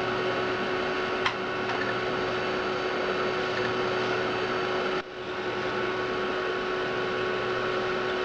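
Amiga 4000's hard drive and power supply running: a steady whirring hiss with a constant whine, one sharp click about a second in, and a brief drop in the noise about five seconds in.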